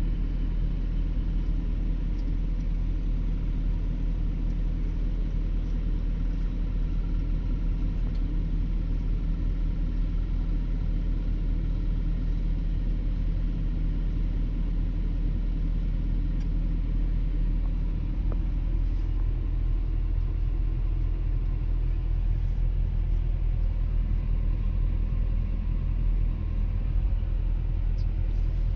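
Excavator engine running steadily with a deep, even drone; its note shifts slightly about two-thirds of the way through.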